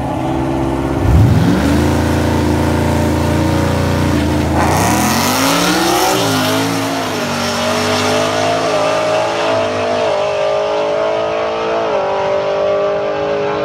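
Drag-race cars at the starting line: about a second in an engine revs up sharply and holds a steady high rpm. Four and a half seconds in the cars launch, and the engine note climbs through several gear changes as they accelerate away down the strip.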